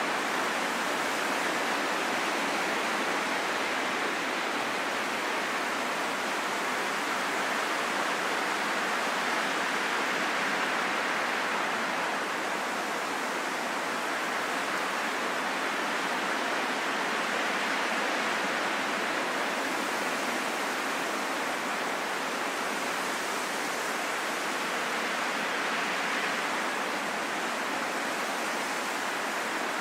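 Steady rushing wind noise that swells and eases slowly over several seconds, without gusts or breaks.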